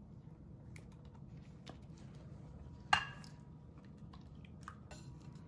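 Plastic-gloved hand mixing thick yogurt-and-besan marinade over fish in a ceramic bowl: faint wet squishes and small scattered clicks, with one sharper click about three seconds in.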